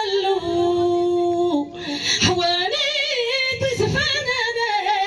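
A woman singing solo into a microphone, holding long notes and ornamenting them with a wavering vibrato; a long steady note fills the first second or so, and the voice dips briefly just before two seconds in.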